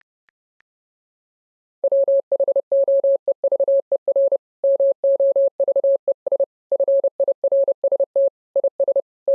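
Morse code played as a single steady mid-pitched beep, switched on and off in short dots and longer dashes. It starts about two seconds in, after near silence.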